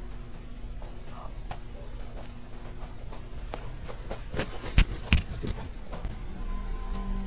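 Close-miked eating sounds of a shell-shaped macaron: a bite through the crisp shell, then chewing with scattered small crackles and mouth clicks. The sharpest crackles come a little past halfway. A faint steady low hum runs underneath.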